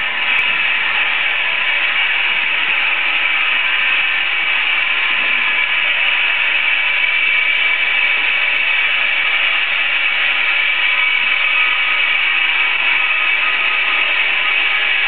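Steady whirring hiss of 35 mm cinema projection-booth machinery, even and unbroken throughout.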